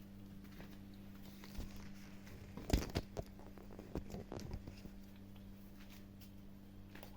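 Kittens chewing and crunching food, with a cluster of sharp crunches and clicks a little before the middle and a few more about four seconds in, over a faint steady hum.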